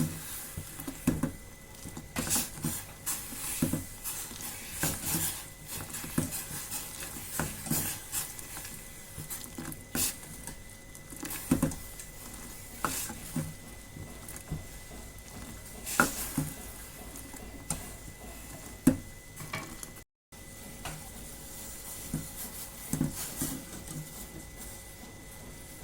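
Metal utensils knocking, clinking and scraping against a cooking pot as something is stirred, in irregular strokes about once a second over a steady background hiss.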